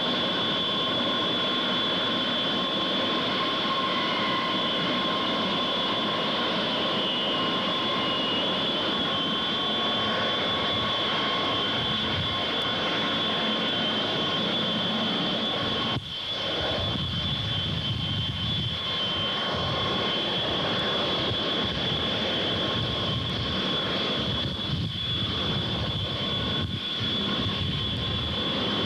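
Douglas EA-3B Skywarrior jet engines running, a steady roar with a high whine. About halfway through the sound dips briefly, and after that a deeper, heavier rumble comes in.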